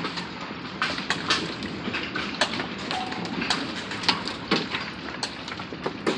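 Hailstones striking hard surfaces in a hail storm: irregular sharp cracks and taps, about two a second, over a steady hiss.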